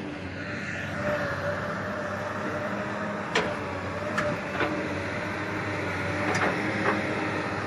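Komatsu PC220-7 hydraulic excavator running steadily under digging load as its bucket works into a pile of rocky soil. Several sharp clacks of stone on the steel bucket come through the second half. The engine is running well now that the accelerator fault has been bypassed.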